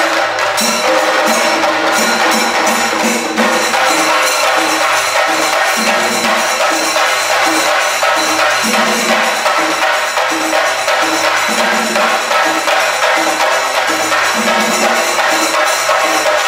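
Live percussion music: a group of cylindrical drums beaten with sticks, playing a fast, dense, unbroken rhythm.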